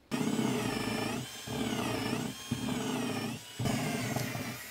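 Power drill with a large bit boring down through the fibreglass top skin and wooden core of a boat's cockpit sole. The motor whine rises and falls in pitch as the trigger is eased, dipping briefly about once a second.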